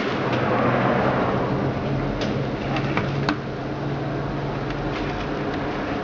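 Samsung top-loading washing machine running on its spin setting, under test on an adapted control board: a steady low hum with a few sharp clicks about two and three seconds in.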